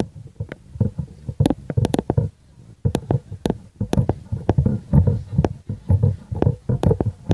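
Wind buffeting the microphone: irregular low rumbling thumps with sharp pops, two or three a second.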